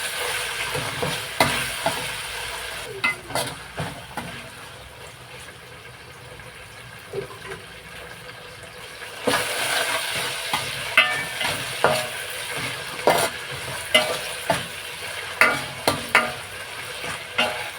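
Curry leaves, tomatoes and green chillies frying in a mix of peanut oil and ghee, sizzling, while a spoon stirs and clicks against the pot. The sizzle eases off for a few seconds in the middle and picks up again with more stirring about nine seconds in.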